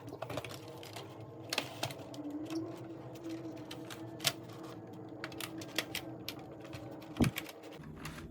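Plastic parts of a Samsung laptop being pried apart by hand: irregular clicks and snaps of the casing and keyboard clips, with one sharp crack about seven seconds in, over a faint steady hum.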